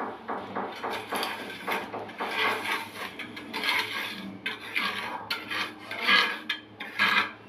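A trowel scraping and smoothing wet cement mortar around the base of a ceramic toilet bowl, in a run of short, uneven strokes.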